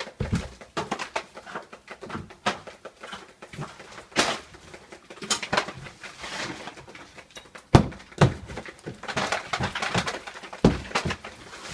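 Irregular knocks, thumps and scraping, with a few heavier thumps in the second half.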